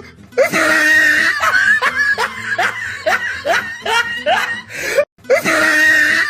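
Loud laughter that starts suddenly, a run of short rising 'ha' sounds about two a second. It breaks off about five seconds in and starts again from the top.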